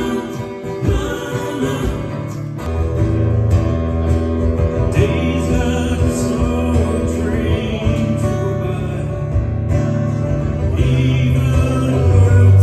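Music: a song with singing and guitar over a steady bass.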